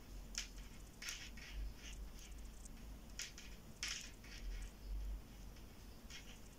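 Faint clicks and scrapes of metal knitting needles as stitches are purled, a scattering of light, uneven ticks.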